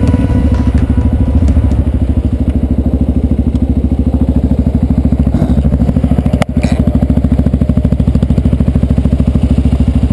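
Yamaha Ténéré 250's single-cylinder four-stroke engine running steadily through an aftermarket Roncar Coyote exhaust: a loud, even, fast exhaust beat with no revving. There is one sharp click about six and a half seconds in.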